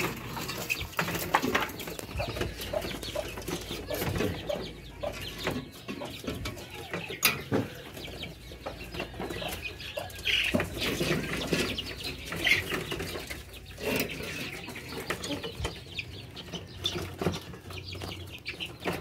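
Chickens clucking now and then, among scattered knocks and rustling.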